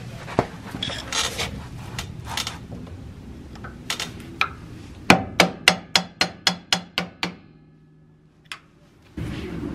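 A hammer taps a screwdriver against the dust cap of a front drum-brake hub to work the cap off, with lighter metal clinks and scraping first. Then comes a quick run of about nine sharp taps, and one more strike a little later. A steady rushing noise starts just before the end.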